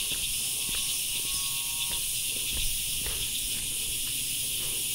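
Steady high-pitched chorus of cicadas droning without a break, with faint footsteps on a dirt path.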